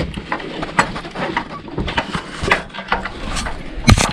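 Irregular knocks, scrapes and rustles of a person climbing down a wooden ladder, with clothing brushing close to the camera microphone; a heavier thump comes near the end.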